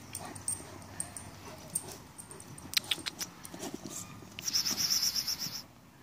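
Black Belgian shepherd dog chewing and mouthing a burst red rubber ball, with scattered small clicks and a few sharp strokes about halfway.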